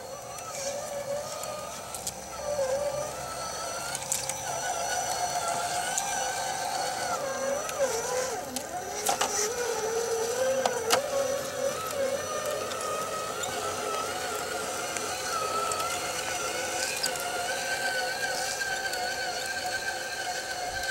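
Electric motor and gear whine of an RC4WD Trail Finder 2 scale crawler truck, rising and falling in pitch with the throttle as it crawls, with a few sharp knocks about nine and eleven seconds in.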